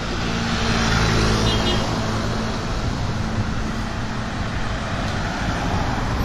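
Road traffic on a city street: cars and motorbikes driving past close by, one vehicle's engine hum loudest about a second in and fading over the next couple of seconds.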